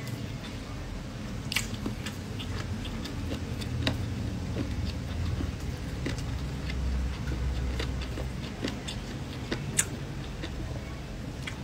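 A person chewing and eating with his hands close to the microphone, with scattered short wet clicks and smacks, over a steady low hum.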